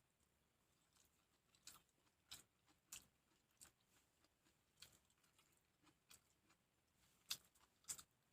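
Faint chewing of food: irregular soft crunches and mouth clicks, roughly one every half second to a second, with two louder ones near the end.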